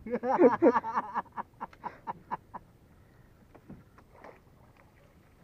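A man's voice for about a second, trailing off into a quick run of short bursts that fade away, followed by a few faint ticks over a quiet background.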